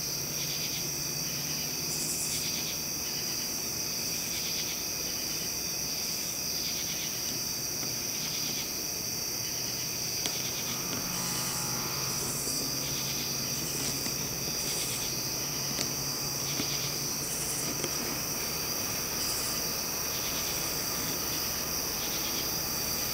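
Crickets and other insects chorusing: a steady high-pitched trill with pulsed calls repeating about once a second over it. A few faint ticks come through in the second half.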